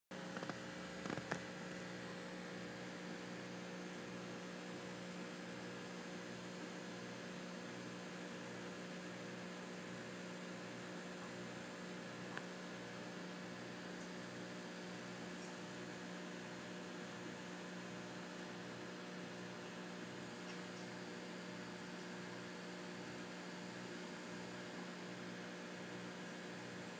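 Steady electrical mains hum with a low throb that pulses evenly, and a few faint clicks near the start and twice around the middle.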